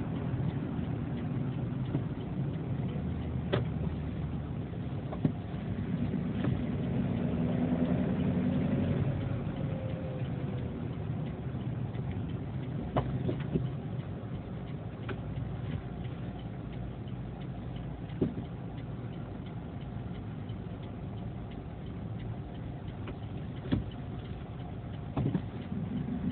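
Vehicle engine and road rumble heard from inside the cabin through a dashcam microphone while driving, with a few scattered clicks and knocks. The rumble swells slightly for a few seconds before the middle.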